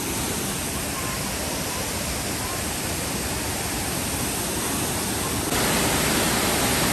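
Steady rush of a river and waterfall. It jumps suddenly louder about five and a half seconds in.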